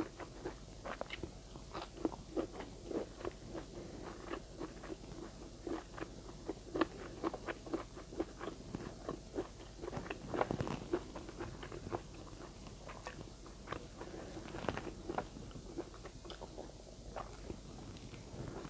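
A person chewing and biting food with the mouth: a quick, irregular run of small crunches and clicks, with a louder cluster about ten seconds in.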